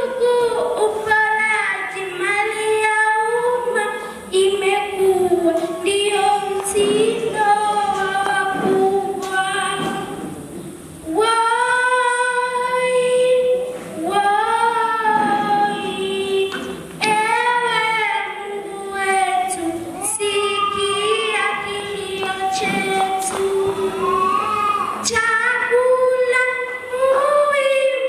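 A young girl singing a gospel song solo into a microphone, holding long notes with a slight waver in pitch and pausing briefly between phrases.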